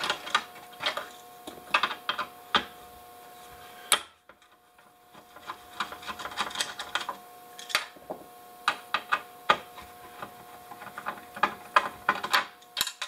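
Hand screwdriver working screws out of an induction cooktop's heat sink and circuit board: irregular small clicks, ticks and scrapes of the driver tip, screws and metal, with one sharper click about four seconds in.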